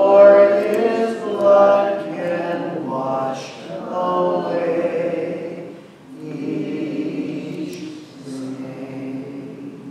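A group of voices singing a hymn without instruments: held, sung phrases with short breaks between them, fading toward the end.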